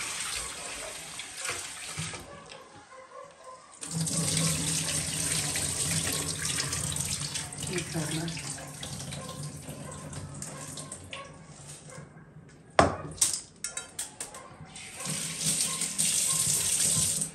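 Kitchen tap running into a stainless steel sink and a metal bowl as lentils are rinsed and the water poured off, in several runs with lulls between. A single sharp knock about thirteen seconds in, followed by a few smaller clicks.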